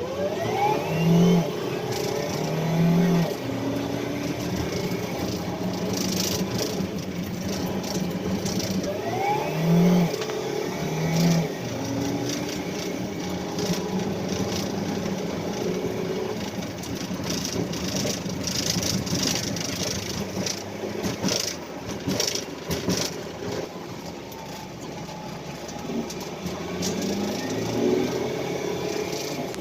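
A motor vehicle's engine running steadily, speeding up with a rising pitch near the start and again about ten seconds in.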